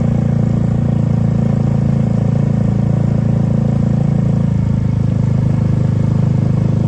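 Bus engine running steadily and loudly close by, a deep even drone with no horn tune sounding.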